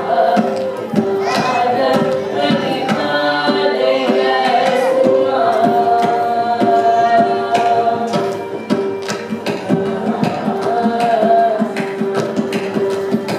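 Carnatic vocal music: singers with violin accompaniment over a steady drone, punctuated by frequent hand-drum strokes.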